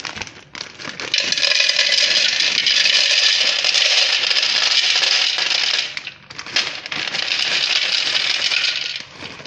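Dry Barilla sedani rigati pasta poured into a stainless-steel bowl, the short tubes clattering and rattling against the metal in two long pours, the second starting about six and a half seconds in.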